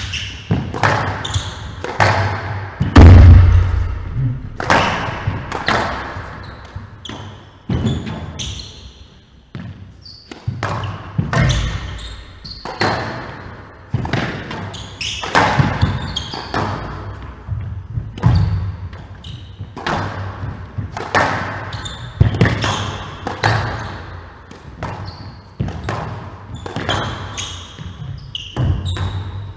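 Squash ball being struck by rackets and hitting the walls and floor of a glass court during a rally: a run of sharp cracks every half second to a second, each ringing in the hall. A heavy thud about three seconds in is the loudest sound.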